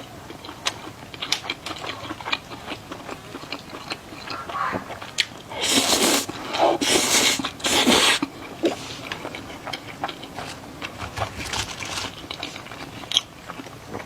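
Close-miked chewing of a juicy bite of meat sausage: a run of wet smacks and clicks, with three loud noisy rushes a little past halfway through.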